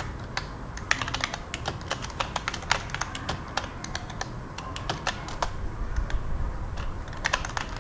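Typing on a computer keyboard: a run of quick, separate keystrokes, with a short pause a little past the middle before a few more keys.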